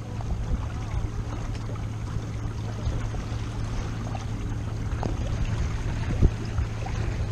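Water rushing and splashing along the hull of a WindRider 16 trimaran under sail, with wind buffeting the microphone. There is a sharp knock about six seconds in.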